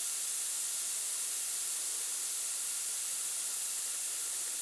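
Stain-remover powder solution in just-boiled water fizzing with a steady hiss as tiny bubbles rise and burst at the surface.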